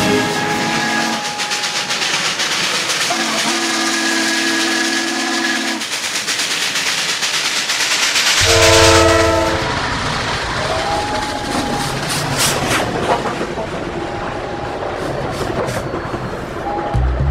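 Steam locomotives running, with hissing steam and exhaust, and two whistle blasts: a long one a few seconds in and a shorter, louder one about halfway through.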